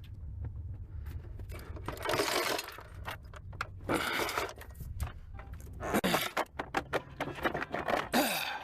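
Metal clinking, rattling and scraping of car parts and hand tools being handled while a car is taken apart, in several short clattering spells over a steady low hum.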